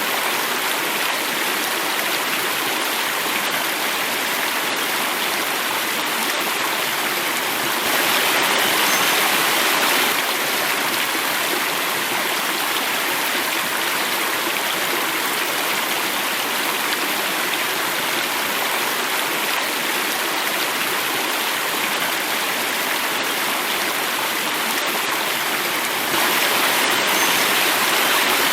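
Stream water running and falling over a small cascade: a steady, even sound of flowing water. It grows a little louder twice, for about two seconds from eight seconds in and again near the end.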